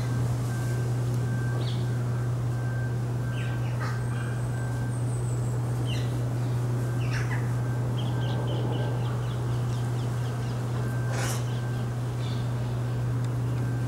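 Scattered short bird calls and chirps over a steady low hum, with one brief harsh carrion crow caw about eleven seconds in.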